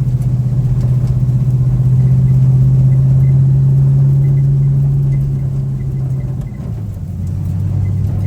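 Pickup truck's engine pulling at steady throttle on a dirt track, its note dropping to a lower pitch about two-thirds of the way through as the throttle eases or the gear changes.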